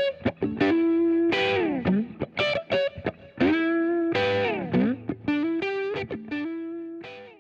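Instrumental music led by a guitar through effects, playing sustained notes with repeated downward pitch slides, fading out near the end.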